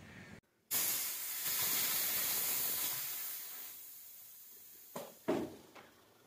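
High-pressure air released from a PCP air rifle's hand pump and fill hose once filling is done: a loud hiss that fades over about four seconds, followed by two short knocks.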